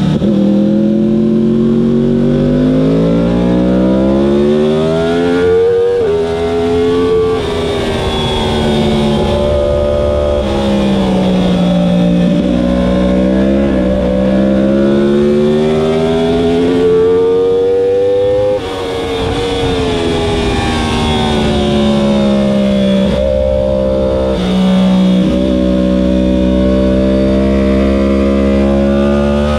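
Yamaha R1 sportbike's inline-four engine heard from onboard at racing speed, its pitch rising as it accelerates through the gears and dropping at each shift. About two-thirds of the way through the pitch falls and the sound dips briefly as the throttle closes, then the engine carries on at a steadier pitch.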